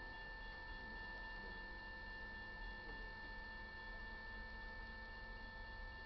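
Railroad crossing warning bell ringing faintly and steadily at a fixed pitch, the crossing activated for an approaching train as its gates come down.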